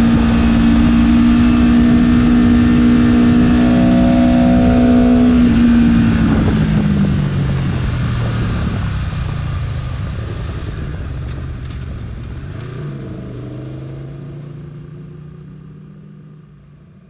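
Aprilia Tuono V4 1100's V4 engine running at steady throttle in third gear, then the throttle closing about six seconds in: the note falls as the bike slows and settles low. The whole sound fades out toward the end.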